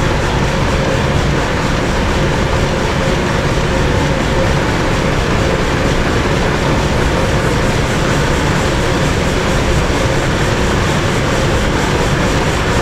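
1924 Mirrlees diesel pumping engine running steadily: a loud, continuous clatter of its valve gear and moving parts.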